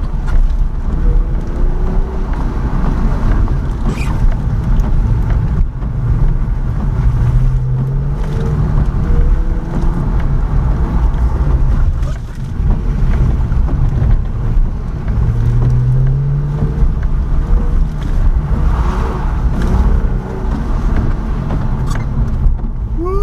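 Car engine running hard through an autocross course, its pitch rising twice as it accelerates between corners, over steady road and wind noise.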